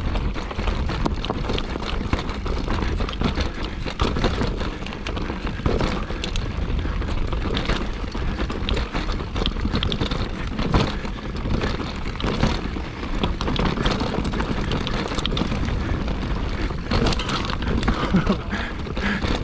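Mountain bike rattling and clattering over a rough trail, with many sharp knocks from the bike and heavy wind buffeting on the microphone.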